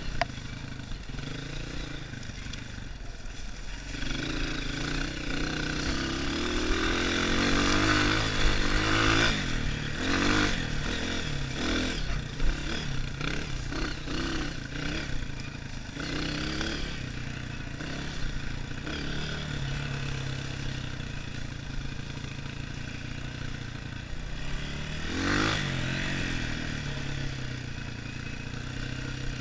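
Dirt bike engine heard close up from a helmet-mounted camera, revving up and down with the throttle. It is loudest from about a quarter of the way in, with another rev near the end.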